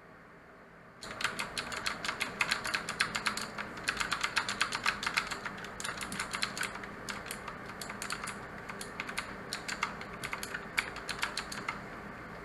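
Mechanical keyboard with clicky blue switches being typed on fast. There is a rapid, continuous clatter of keystrokes that starts about a second in and stops shortly before the end.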